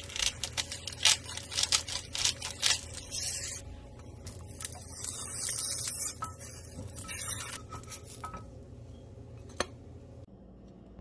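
Cooking-utensil sounds at a nonstick frying pan: a quick run of sharp clicks and scrapes, then a longer scraping hiss a few seconds in as a silicone spatula slides under the bread. More clicks follow, and there is a single sharp knock near the end.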